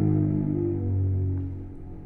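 Solo cello holding a low bowed note rich in overtones, which stops about three-quarters of the way through, leaving a faint ring in the hall.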